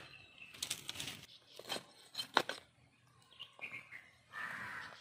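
Scattered sharp clicks and crackles of a singed cow head being handled and shifted on banana leaves, followed near the end by a denser scraping noise as a knife starts working on it.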